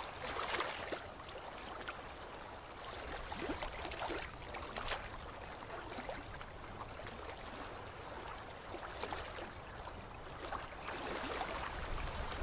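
Quiet running, lapping water with scattered small splashes and no speech or music.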